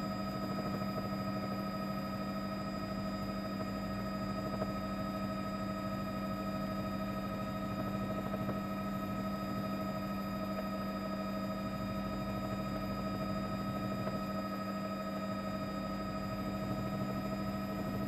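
Steady mechanical drone of a helicopter: a low hum with several fixed higher tones over an even rushing haze, unchanging throughout.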